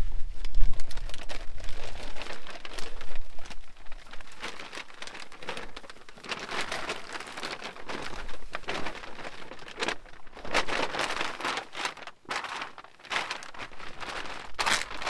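Irregular crinkling and rustling over falling rain, busiest in the middle and with a sharp burst near the end.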